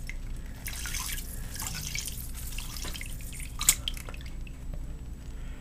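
Water squirted from a plastic syringe splashing and dripping off a computer mouse's scroll wheel into a sink, rinsing grease out of it. A sharp click about three and a half seconds in.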